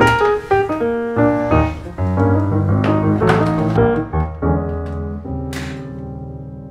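Background piano music, ending on a held chord that fades away.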